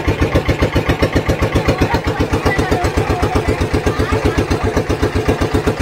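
Engine of a wooden river passenger boat running steadily under way, a rapid, even chugging.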